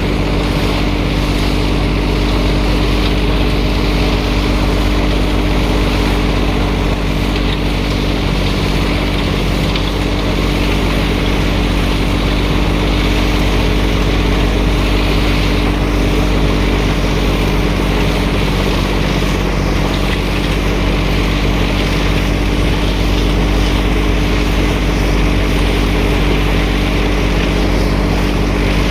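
A machine motor running steadily at constant speed, a continuous low rumble with a steady hum.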